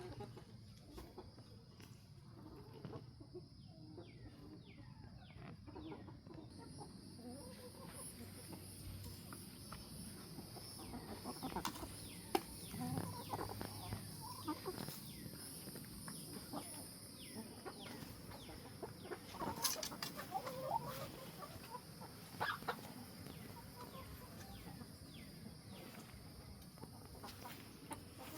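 Chickens clucking and calling in many short, quick notes, with a few sharp knocks.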